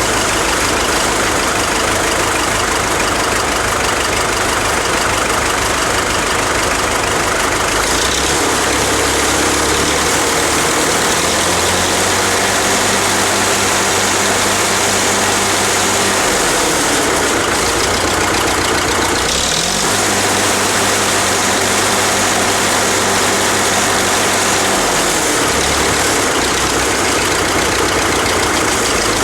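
Farmall gas-start diesel tractor engine running, its speed raised and lowered several times. It steps up about a quarter of the way in, dips briefly and comes back about two-thirds through, and drops again near the end. Sheet metal and emblems on the tractor vibrate along with it.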